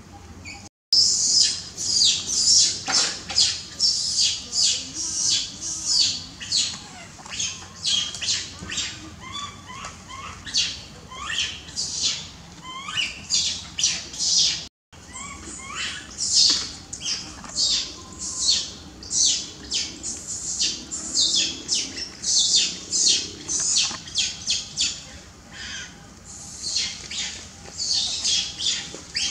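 Infant long-tailed macaque screaming and crying over and over in short, shrill, falling squeals, several a second: the tantrum cries of a baby wanting milk.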